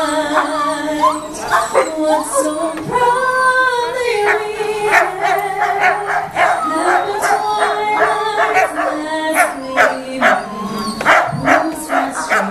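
Several police K-9 dogs barking excitedly, with drawn-out whining and howling calls mixed in. The barks come thick and fast in the second half.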